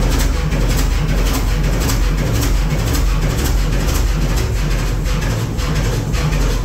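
Fairbanks Morse 32E six-cylinder two-stroke diesel engine running steadily, a loud, low, even rumble with faint regular ticking over it.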